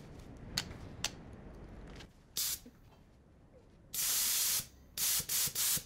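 Two sharp clicks as the quick couplings snap together, then a compressed-air blowgun firing short blasts of hissing air through a newly soldered copper gauge fitting. There is one brief blast, a longer one of about half a second, then three quick blasts near the end, blowing dust and swarf out of the new pipework.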